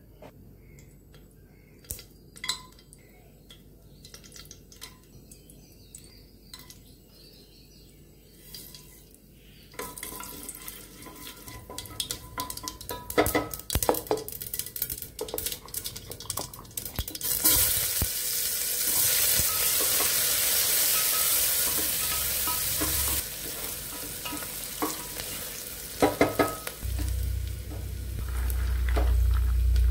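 Oil frying in a pressure cooker: faint metal taps at first, then a sizzle from about ten seconds in that grows much louder past halfway as chopped onions fry in the hot oil, stirred with a steel ladle clicking against the pot. A low rumble comes in near the end.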